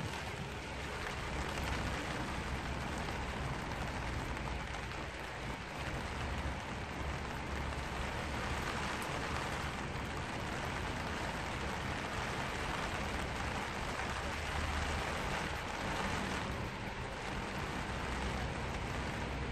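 Steady rain falling on a black vinyl umbrella canopy, heard from underneath as a dense, even hiss of drops on the plastic, with a low rumble beneath it.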